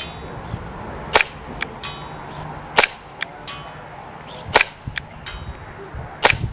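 VFC Glock 45 gas blowback airsoft pistol, powered by green gas, firing four single shots about a second and a half apart. Each shot is a sharp pop followed by a couple of fainter clicks.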